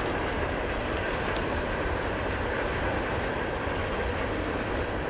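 Freight cars rolling past: a steady rumble of steel wheels on rail from a train of empty coal hoppers, with autorack cars moving on the track behind, and faint scattered ticks over the top.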